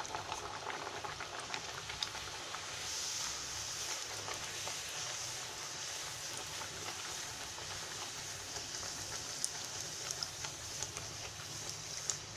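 Tomato masala poori deep-frying in hot oil: a steady sizzling and bubbling full of fine, fast crackles as the dough fries in oil heated well over a medium flame.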